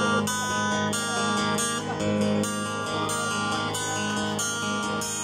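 Acoustic-electric guitar strumming sustained chords that change about every half second over strong bass notes, the opening of a song before the singing comes in.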